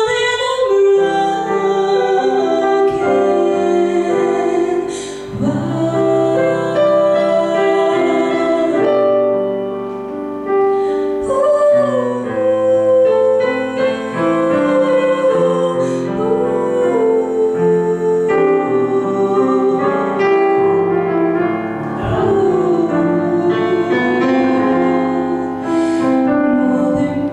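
A woman singing a slow song solo with digital piano accompaniment, her held notes wavering in vibrato.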